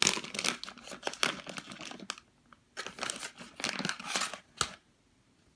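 Plastic packaging of a squishy toy crinkling as it is handled, in two stretches of irregular rustling that stop about a second before the end.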